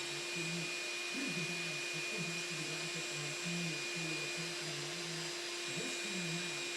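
An electric motor running steadily with a high, even whine over a whooshing hiss, at full speed after spinning up just before.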